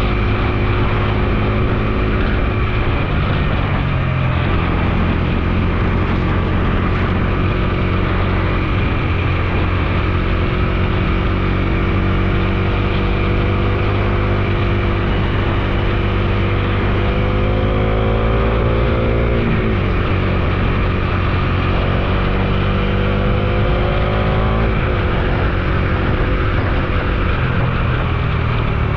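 Bajaj Dominar 250's single-cylinder engine running under way at a steady pitch over a constant hiss. About two-thirds of the way in, and again near the end, the revs climb and then drop sharply.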